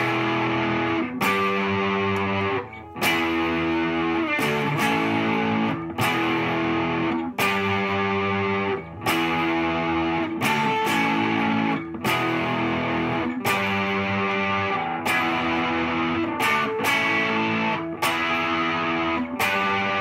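Fender Telecaster Custom '74 electric guitar playing a chord riff: each chord is strummed and held for a second or so, then cut short, with brief breaks between chords.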